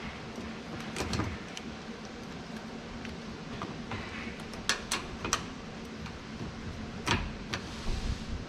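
Scattered light clicks and knocks of hand tools and small hardware being handled, over a steady low hum.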